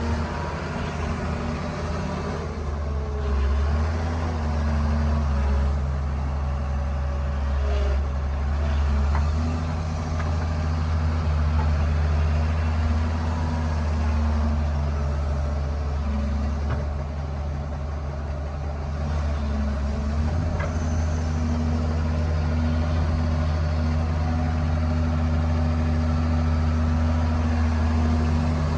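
Excavator's diesel engine running steadily at low speed, its note shifting slightly a few times, with no breaker blows.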